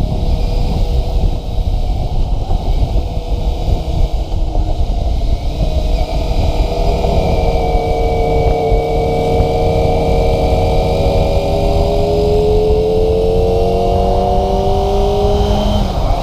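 Kawasaki ZX-25RR's 250 cc inline-four engine under way, its pitch climbing slowly and evenly through the middle of the stretch, then dropping suddenly near the end, over a constant low rumble of wind noise.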